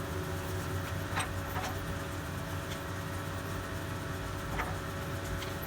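Grazioli Fortuna metal lathe running steadily, a constant hum with a fixed tone, and a few faint light ticks.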